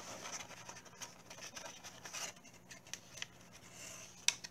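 Faint handling sounds of unpacking a small radio enclosure kit: light scrapes and taps of the metal enclosure panels against each other and the cardboard box, with a sharp click near the end.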